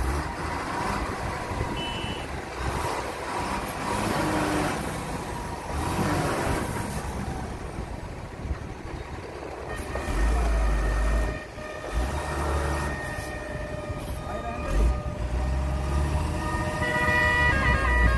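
Heavy vehicle engines running, with a truck horn sounding in the second half: a long held tone that grows louder and wavers near the end.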